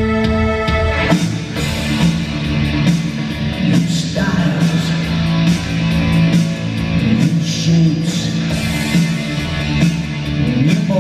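Live rock band playing: electric guitars, keyboards and a drum kit. A held chord gives way to the full band about a second in.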